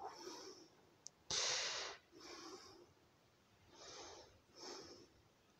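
A person breathing close to the microphone: several short, unpitched breaths, the loudest about a second and a half in, with a faint click just before it.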